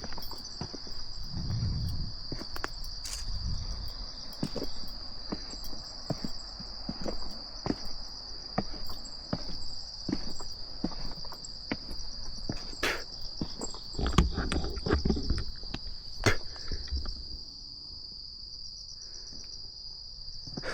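A steady, high-pitched chorus of insects shrilling without pause, over footsteps and small knocks of someone walking. The footsteps stop about 17 seconds in, leaving only the insects.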